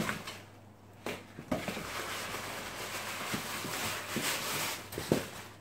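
Paper gift box and tissue paper rustling and crinkling as it is rummaged through, with a few sharp clicks, the loudest near the end.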